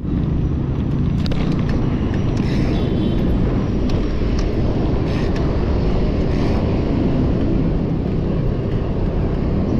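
Steady rush of wind over the camera microphone on a moving mountain bike, with a few faint ticks.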